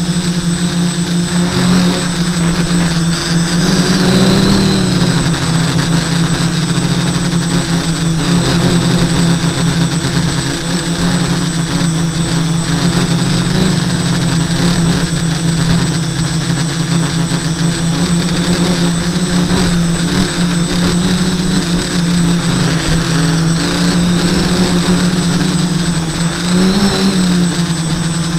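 Quadcopter's SunnySky 980 kV brushless motors and propellers humming steadily, heard from a camera on the frame. The pitch bends briefly as the throttle changes, about four seconds in and again near the end.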